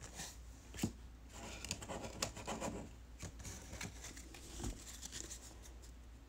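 Faint rustling and scraping of trading cards being handled, with a few soft taps, one of them about a second in.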